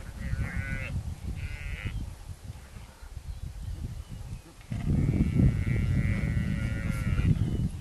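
Newborn Cape buffalo calf bellowing in distress as spotted hyenas bite at it: two short high calls, then a long drawn-out call about five seconds in, over a low rumble.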